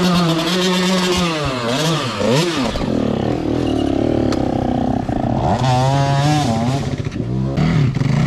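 Enduro dirt bike engines revving up and down on a steep, rocky trail climb, the pitch rising and falling in repeated throttle blips.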